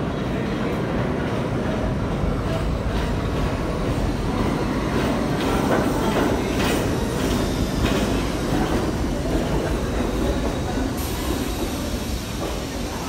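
Kawasaki R68A subway train pulling into the station and slowing. It gives a loud steady rumble, with wheels clacking over rail joints in a regular rhythm and a faint high squeal.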